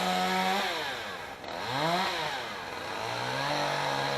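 Two-stroke chainsaw revving. It is held at high throttle, drops back a little under a second in, blips up and down around two seconds in, then runs steadily at a lower pitch.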